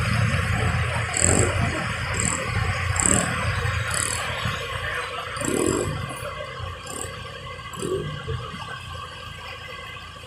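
Pickup truck driving through floodwater, its engine running and water washing around the wheels, fading gradually as it moves away.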